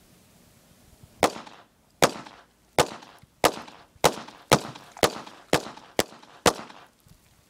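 Ten single shots from a 1911-style .22 LR semi-automatic pistol, the pace quickening from under a second apart to about two a second. Each sharp crack trails off in a short echo.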